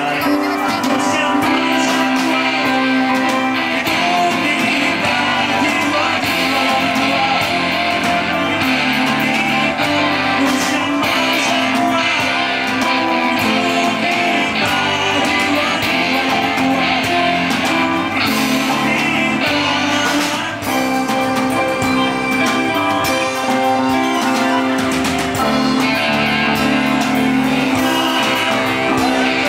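Live rock band playing a song: electric guitars, bass guitar, keyboard and drums, with a man singing the lead vocal.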